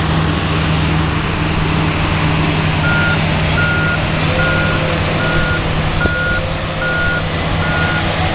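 Heavy construction equipment running with a steady diesel engine drone. About three seconds in, its backup alarm starts beeping, evenly, roughly one and a half beeps a second.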